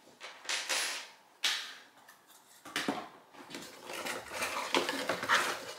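Cardboard box inserts scraping and rustling as parts are unpacked by hand. A couple of short scrapes come first, then from about halfway through a busy stretch of small clicks and light clattering of handled parts.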